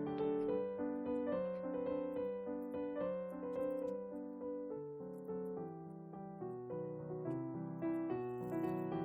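Background piano music: a light, flowing melody of short notes over a steady accompaniment.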